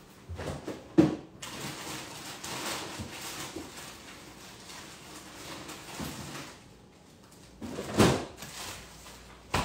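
Kitchen handling noises: a sharp knock about a second in, a soft rushing hiss for several seconds, then a louder scraping thud near the end, the kind made by a drawer or cupboard being opened or shut.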